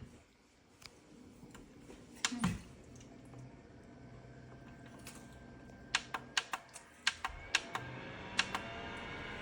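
Plastic clicks from the buttons of a small battery-powered desk fan being pressed, a few early on and then a quick run of about eight, while the fan's motor runs with a steady hum and whine that gets louder near the end as the speed is stepped up.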